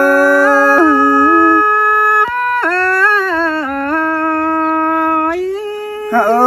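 A single unaccompanied voice singing Thái folk courtship song (hát đối đáp) in long held notes, the pitch bending and ornamented as the melody slides between tones. The line breaks briefly about two seconds in and again near the end.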